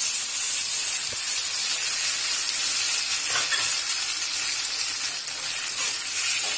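Hot sesame oil with sautéed onion and tomato in an aluminium kadai sizzling steadily as tamarind water is poured in, with a metal ladle stirring the pan near the end.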